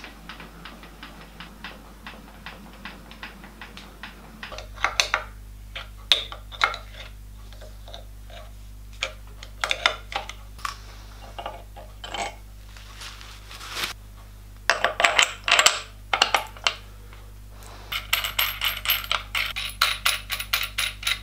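Aluminium swarf and small metal parts clinking and scraping as chips are brushed and cleared from a milling machine's fixture and table, in irregular clicks that get denser near the end. A steady low electric hum runs underneath and changes about four and a half seconds in.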